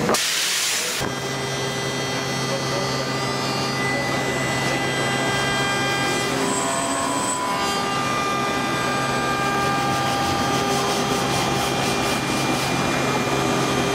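Hand sanding of a wooden cutting board's machined edge with a sanding sponge, rubbing strokes over the wood, against a steady hum of workshop machinery. A short burst of hiss comes right at the start.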